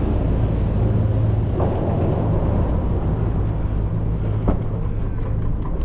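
Steady low mechanical hum and rumble of a moving chairlift, heard through clothing that covers the camera, with a single sharp knock about four and a half seconds in.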